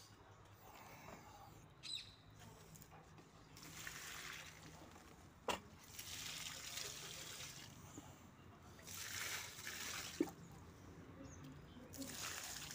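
Water poured from a bucket onto garden plants and soil, splashing in four separate pours of a second or two each. Two short sharp knocks come between the pours.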